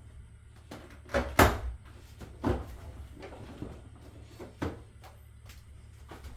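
A few scattered knocks and clunks of installation work, the loudest about a second and a half in and another about a second later, over a steady low hum.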